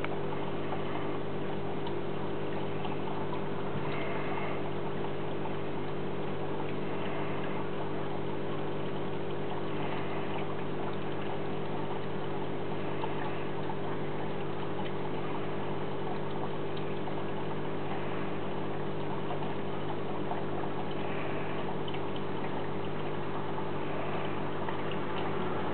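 Steady hum of running aquarium equipment, an electric pump with water trickling and bubbling over it.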